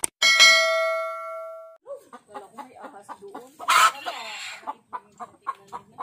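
A click and a bell chime ringing and fading away, the subscribe-button notification-bell sound effect. Then hens clucking, with one louder, harsher squawk about four seconds in.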